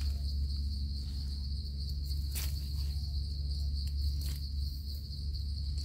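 Insects chirring in a steady high drone over a steady low rumble, with two soft clicks, one near the middle and one later on.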